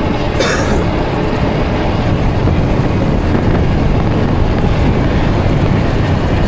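Wind rushing over the microphone while a Ridstar Q20 electric bike is ridden at full speed, a steady low rumble mixed with tyre and road noise. A short hiss about half a second in.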